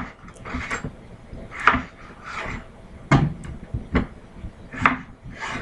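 Kitchen knife cutting red potatoes on a wooden cutting board, the blade knocking on the board about eight times at an uneven pace.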